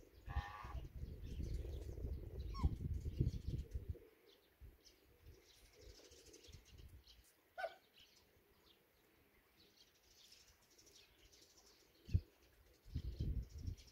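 Faint bird calls in an outdoor waterfowl enclosure: a few short pitched calls, one about half a second in and another near the middle, with scattered high chirps of small birds. A low rumble of wind on the microphone covers the first four seconds, and there is a single thump near the end.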